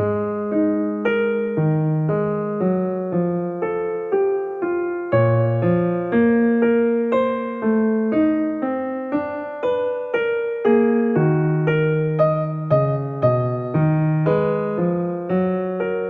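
Background music: a gentle piano or electric piano melody with chords, notes struck at an even, unhurried pace.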